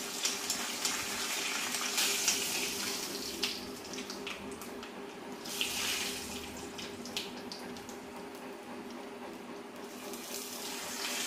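Tempering of mustard seeds, dried red chillies and curry leaves sizzling in hot oil in a cast-iron kadai, with scattered crackles and a steel spoon stirring. The sizzle swells around two seconds in, again after three seconds and near six seconds.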